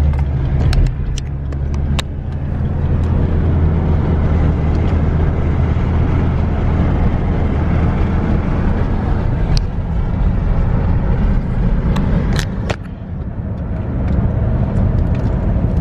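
Car driving, heard from inside the cabin: a steady low rumble of engine and road noise, with a few brief clicks.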